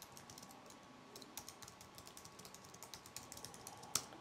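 Typing on a computer keyboard: a quick, faint run of keystrokes, with one louder keystroke near the end.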